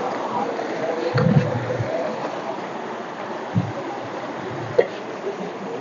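Mountain stream rushing steadily over stones, with a metal detector's faint wavering tone in the first two seconds. A few low thumps and a short click come through over the water.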